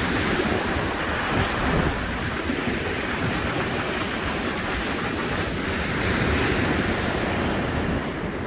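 Rough Lake Michigan surf breaking and washing on the shore in a steady rush, with wind buffeting the microphone.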